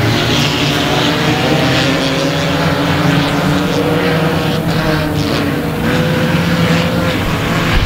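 A field of front-wheel-drive Ecostock stock cars running together around the track: a steady drone of many engines at once, their pitches overlapping and wavering slightly.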